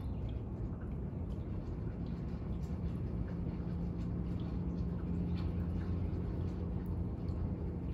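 Rainy-day outdoor ambience: a steady low rumble with a faint hum through it, and scattered light drips.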